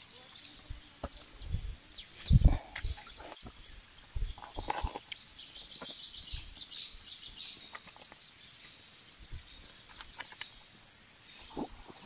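Birds chirping in a quick run of short falling notes, over dull knocks and thumps as fish are gutted with a knife on a board, the loudest about two seconds in. Near the end come two short, high, steady notes.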